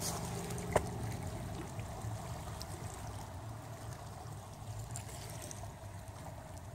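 Small waves lapping at a lake shore over a low, uneven rumble, with one sharp click about a second in.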